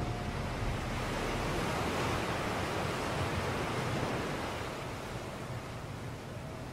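Steady rushing of wind and water wash from a canal boat under way, a little louder in the middle.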